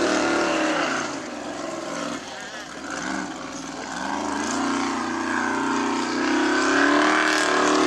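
Formula Offroad buggy's engine revving hard as it climbs a steep sand slope. It drops back in loudness about a second in, then rises again and holds high revs through the second half.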